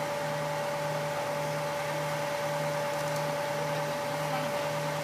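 A crane's engine running steadily: a constant high whine over a low, slightly pulsing hum.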